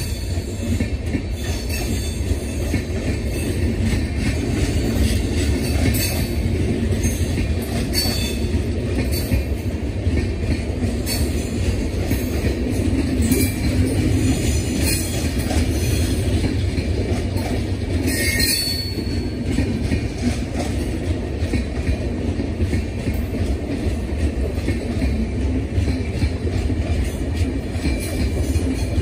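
Indian Railways LHB passenger coaches running past at speed: a steady rumble of wheels on rails, with scattered sharp clacks from the wheels and a brief high wheel squeal about two-thirds of the way through.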